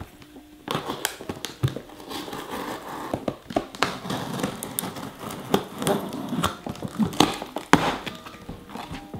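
Box cutter slicing through the packing tape of a cardboard shipping box, with scraping, crinkling tape and sharp ticks and knocks against the cardboard, starting just under a second in.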